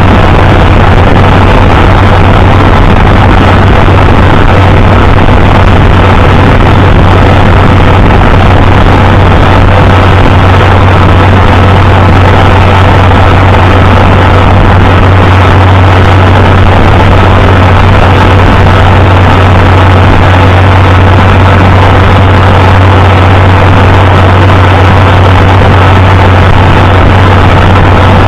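Farmall 560 tractor engine running at a steady speed, loud and close, with a constant low drone that never changes.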